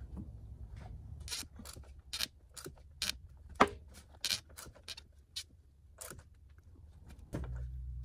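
Irregular clicks, taps and light scrapes, like small parts or tools being handled, with a sharper knock about three and a half seconds in. A low steady hum fades out after about a second and comes back near the end.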